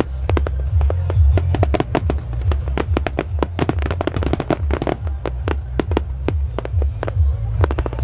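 Starmine fireworks barrage: a rapid, continuous string of shell bursts and cracks, several a second, over a deep rumbling boom.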